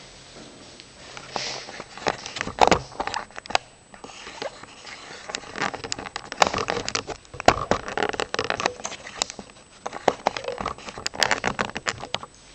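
Irregular clicks and knocks mixed with rustling, coming in uneven clusters.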